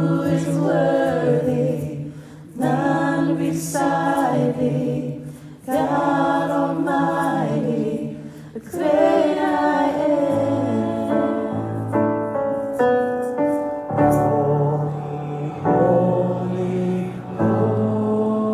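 A small worship team of women's and a man's voices singing a worship chorus together, in sung phrases of a few seconds each with brief breaths between them; from about halfway through, long held notes sit under the voices.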